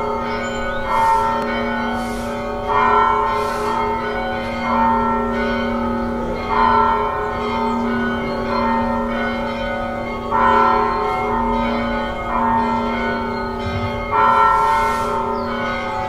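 Church bells tolling, a fresh strike about every two seconds, each stroke ringing on over a steady low hum that never dies away between strokes.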